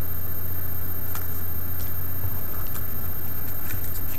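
Steady low hum and hiss of room background noise, with a few faint light ticks from trading cards being handled.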